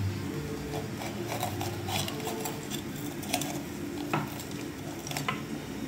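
Kitchen knife cutting into a green bell pepper held over a wooden chopping board: scattered light clicks and knocks of the blade, with a few taps on the board. A faint steady hum underneath.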